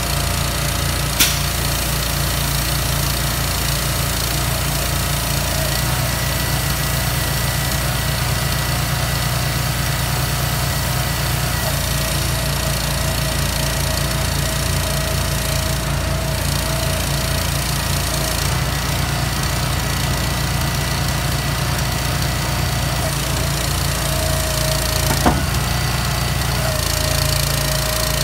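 Diesel engine of a container-delivery truck running steadily with a low rhythmic rumble and a steady whine. A sharp click about a second in and another near the end.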